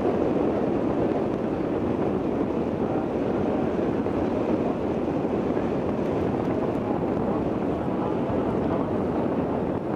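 Steady wind rushing over the microphone on open tidal flats, an even noise with no distinct hoofbeats or other events.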